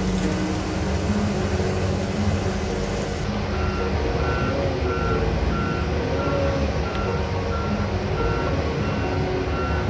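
Heavy diesel machinery running steadily, with a reversing/travel alarm that starts beeping a few seconds in at about two beeps a second, as the wheel excavator is loaded for transport.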